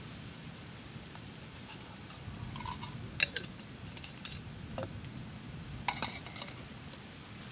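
A few short, sharp clinks and knocks, two of them louder (a little over three seconds in and about six seconds in), over a steady low background noise.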